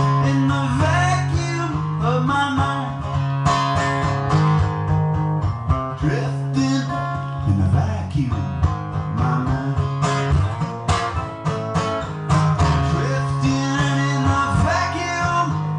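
A solo acoustic guitar playing an instrumental passage of a song, strummed over steady, ringing low notes.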